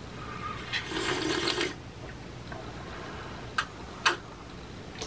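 Handling noise of a plastic CPAP mask and hose: a rustling hiss lasting about a second near the start, then two sharp clicks about half a second apart.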